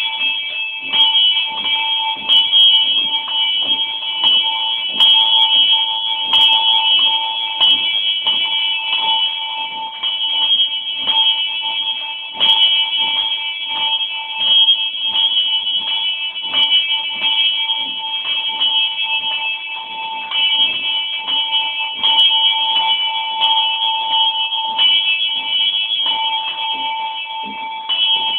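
A small bell swinging high in a wrought-iron wall frame, rung full swing: its clapper strikes over and over, about once a second, each strike ringing on so the tone never dies away.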